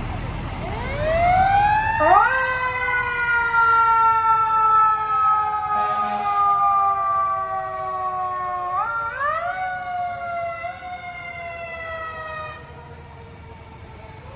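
Emergency vehicle siren wailing: its pitch climbs about a second or two in, sinks slowly over several seconds, climbs again at about nine seconds and sinks once more, then fades near the end.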